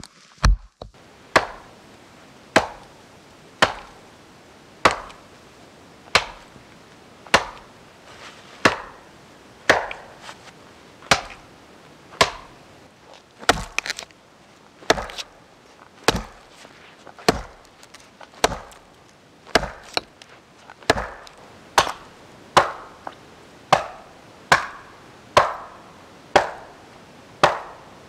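Small axe chopping into a fallen log, steady blows a little more than a second apart.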